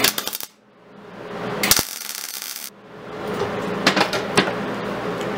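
MIG welder tack welding steel: a brief crackle of arc at the start, then a steadier arc crackle lasting about a second that cuts off sharply. A couple of light metal clinks follow near the end.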